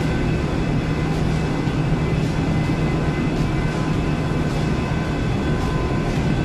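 Steady drone of an offshore vessel's machinery heard on deck: a constant low hum with faint, steady high tones over it.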